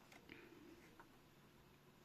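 Near silence: room tone with a few faint small clicks, one of them about a second in.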